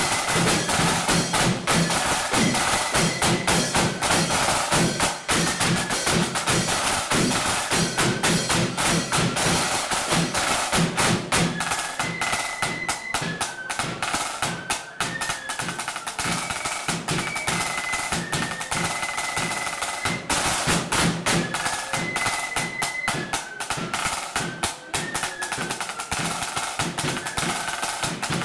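A marching flute band playing a tune: flutes carry a stepping melody over rapid, continuous snare drumming.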